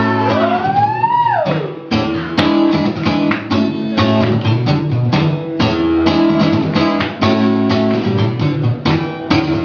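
Acoustic guitar strumming chords in a steady rhythm, coming in about two seconds in after a held sung note slides up and falls away.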